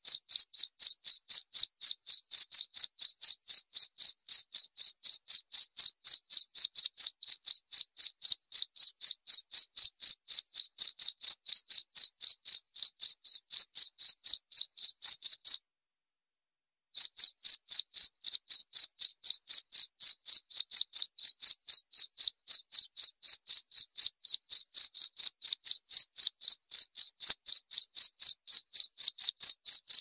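A cricket chirping in a steady, even rhythm of high-pitched chirps. It breaks off for about a second and a half midway, then carries on in the same rhythm.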